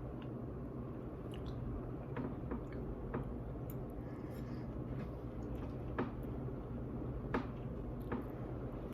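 Someone eating microwaveable noodles: scattered wet chewing clicks and squelches, over a steady low hum.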